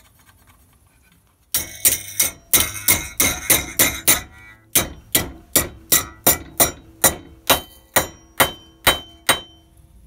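Hammer blows on a thin sheet-steel strip clamped in a bench vise, bending it into an angle piece, each strike ringing metallically. They start about a second and a half in with a quick flurry, then settle into steady blows about two a second until just before the end.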